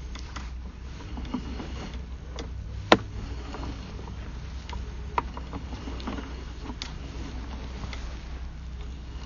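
Sewer inspection camera's push cable being pulled back out of the drain line: scattered light clicks and knocks over a low steady rumble, with one sharp click about three seconds in and a smaller one about five seconds in.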